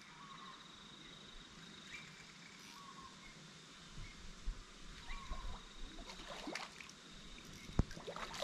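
A hooked European carp splashing and thrashing at the surface near the bank, in irregular bursts that start about halfway through, with one sharp tap near the end. Under it, a steady high pulsing trill and a few short chirps.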